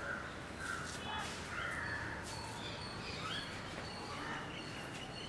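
Crows cawing again and again, with smaller birds chirping in short high calls between them.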